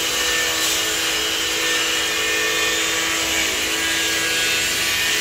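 A machine running steadily: a constant hum with an even hiss over it.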